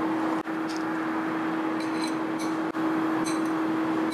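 Steady room hum with one constant tone, and a few light clinks of chopsticks against a ceramic bowl and plate, around the middle and near the end.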